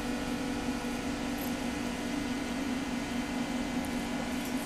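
Steady mechanical hum of a running machine, with an even low tone underneath.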